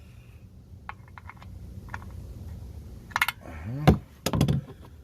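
A 3/8-inch swivel-head ratchet clicking in short runs as an oil drain plug is snugged hand-tight, with a brief strained grunt of effort about three and a half seconds in.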